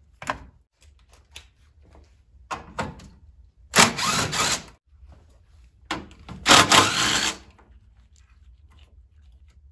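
A power tool runs in two rattling bursts of about a second each, among scattered clicks and knocks of tool handling.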